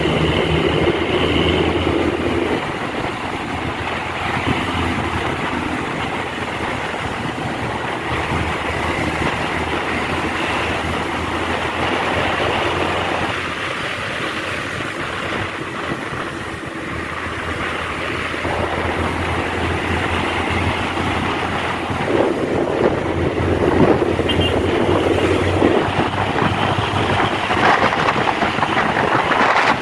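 Bus traffic on the road: a large bus's diesel engine running with heavy road and tyre noise, growing louder about three-quarters of the way through.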